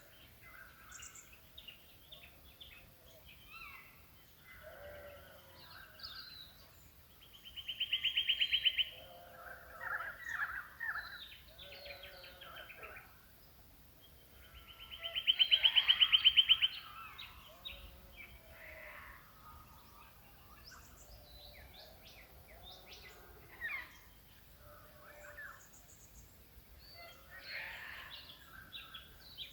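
Mixed birdsong from several birds calling at once, with varied short calls throughout. A loud, fast trill comes about eight seconds in, and a longer one about sixteen seconds in.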